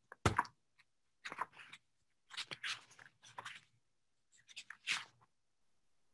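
Faint crunching, crackling noises in about five short bursts, each about half a second long.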